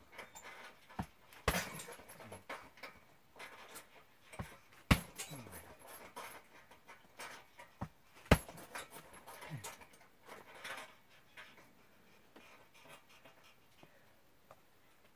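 Roundhouse kicks landing on a hanging heavy punching bag: three loud thuds about three and a half seconds apart, each with a lighter knock about half a second before it. Heavy breathing runs between the kicks, and the sounds die down over the last few seconds.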